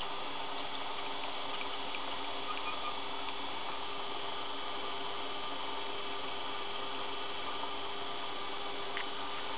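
Einhell BT-ML 300 mini lathe running steadily while a turning tool cuts a brass rod: an even motor and gear whine made of several steady tones, with a few faint ticks.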